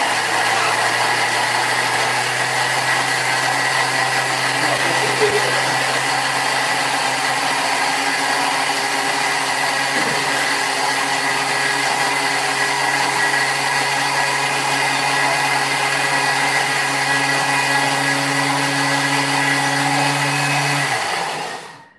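Thermomix TM5 food processor blending a Thai red curry paste with coconut milk at speed 10, its top speed: a loud, steady high-speed whir with a high whine. It cuts off abruptly near the end, when the blending is stopped about halfway through the minute.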